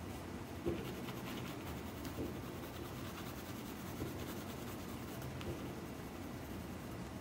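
Pencil scratching on paper as it shades lightly, with a few soft knocks along the way.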